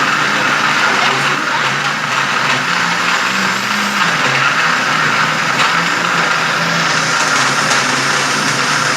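Electric mixer motor running steadily at speed, beating cake batter, with a loud whirring hum.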